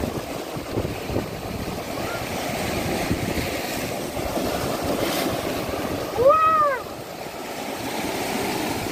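Sea surf washing and breaking over shoreline rocks, a steady rushing. About six seconds in, a single short high-pitched call rises and falls, louder than the surf.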